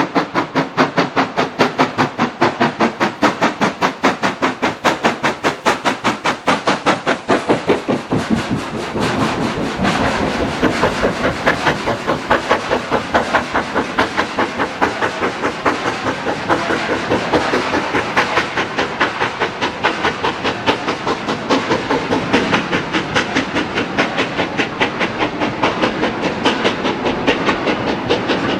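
LMS Black 5 4-6-0 steam locomotive working under steam, its exhaust beating evenly at about three to four beats a second. From about eight seconds in the beats are less sharp over a steadier rush of steam and train noise.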